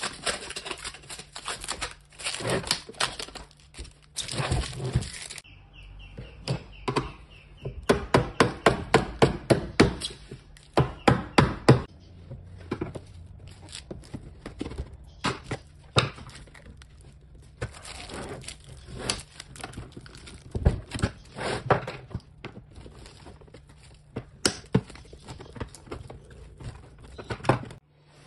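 A flat screwdriver prising and knocking at the glued plastic lid of a LiFePO4 battery case, giving many sharp knocks and plastic cracks as the lid is levered free. Around a third of the way in comes a quick run of about a dozen loud knocks, a few a second. The opening seconds hold rustling from the plastic wrap.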